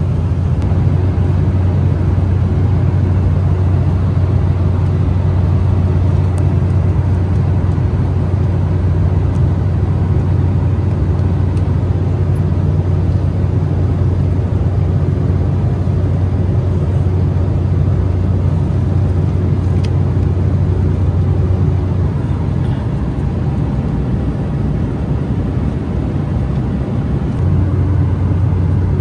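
Steady cabin drone inside an Embraer E190 airliner: a low engine hum under an even rush of air. The hum eases slightly for a few seconds near the end, with a few faint clicks.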